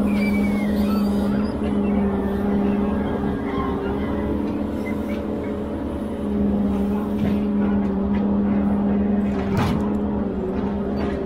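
Ponsse Elephant forwarder's diesel engine and hydraulics running at steady revs with a steady hum, which eases for a few seconds in the middle; a single knock near the end.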